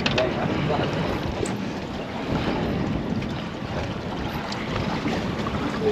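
Wind buffeting the microphone and water rushing past a moving boat: a steady, even rush of noise.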